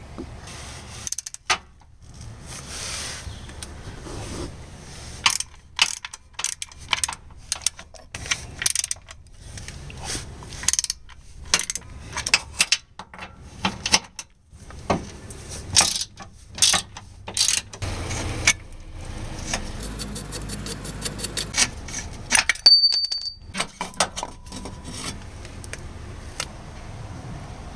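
Socket ratchet and steel socket working the bolts of a lower engine torque strut mount: irregular sharp metal clicks and clanks, then a fast, even run of ratchet clicks and a brief high metallic ring.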